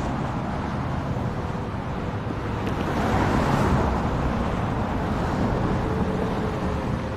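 A large vehicle engine running steadily.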